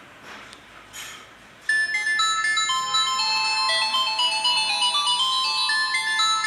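A polyphonic phone ringtone melody of quick, high electronic notes starts abruptly about a second and a half in, after a few faint clicks. It is an LG LX125 ringtone played on a Samsung Galaxy J7 Prime.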